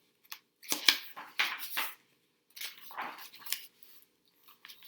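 Pages of a picture book being opened and turned by hand: paper rustling in several bursts, with a sharp snap of the cover or a page just under a second in.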